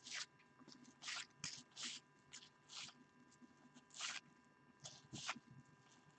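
Cardboard trading cards sliding against one another as they are flipped through one by one, giving a string of short, faint swishes at irregular intervals.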